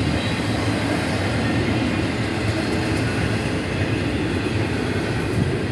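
Double-stack intermodal freight train rolling steadily through a grade crossing, a constant rumble and rush of steel wheels on the rails, at about 20 mph.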